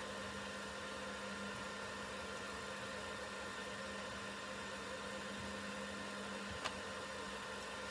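Steady electrical hum with a faint hiss. About six and a half seconds in there is a single click, and the lowest hum tone cuts off at the same moment.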